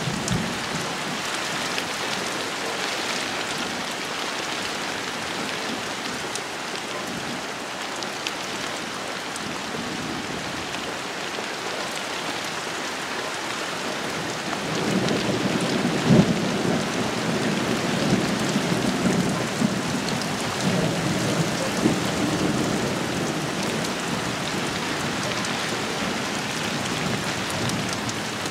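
Heavy rain falling steadily on garden shrubs. About halfway through, a rumble of thunder rolls in with one sharp peak, then fades over several seconds.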